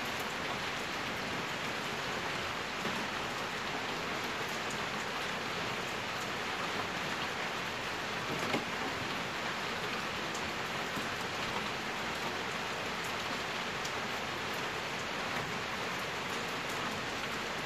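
Light rain falling, a steady even patter with faint scattered drips, and one small click about eight and a half seconds in.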